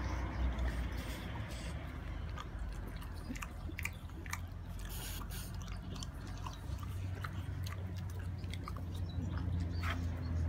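French bulldog chewing and biting on a chunk of sweet potato: irregular wet smacking and clicking from its mouth, over a steady low rumble.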